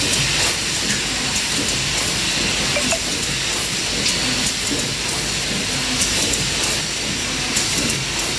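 Automatic corner-spout pouch sealing machine running: a steady hiss over a low hum, with occasional light clicks from its pneumatic sealing stations.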